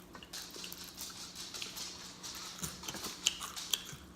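Close-miked chewing and lip-smacking of fried chicken: a stream of soft wet clicks and crackles, with a few sharper smacks in the second half, over a faint steady hum.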